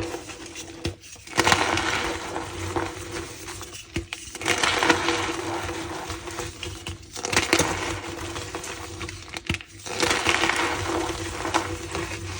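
Blocks of tie-dyed gym chalk being crushed and squeezed by hand, crunching and squeaking in four spells of two to three seconds each.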